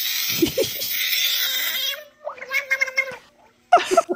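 A frog's distress scream: a long, high, hissing screech while it is being poked, then after a short break a shorter wailing cry.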